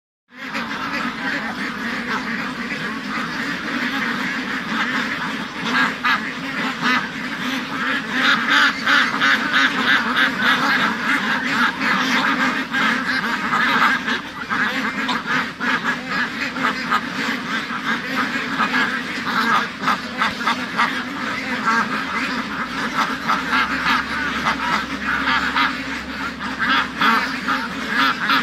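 A large flock of white domestic ducks quacking all together: a dense, continuous chorus of many overlapping quacks with no let-up.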